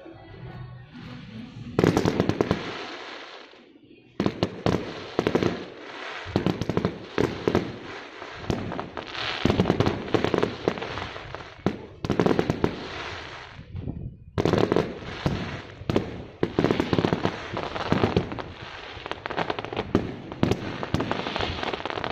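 Fireworks going off in dense volleys of rapid cracks and bangs, with two brief pauses.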